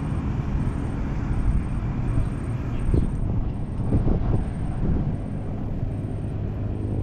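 Wind rumbling on the microphone over open water, with a few small splashes or knocks in the middle and a faint high chirp repeating at an even pace.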